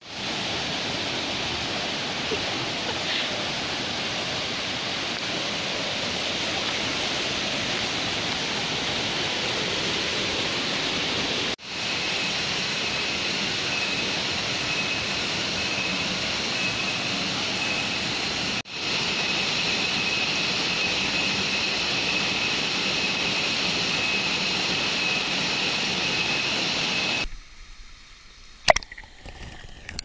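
A tall waterfall of about 50 m and its rocky stream rushing, a steady roar of falling water. A thin high steady tone joins partway through, and near the end the roar cuts off abruptly, giving way to much quieter sound with a few sharp clicks.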